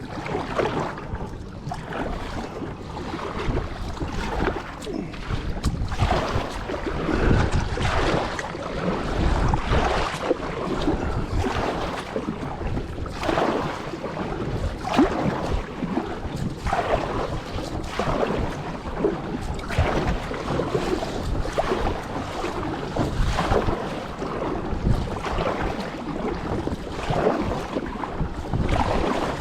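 Choppy river water slapping and splashing against a kayak's hull in irregular surges, with wind buffeting the microphone.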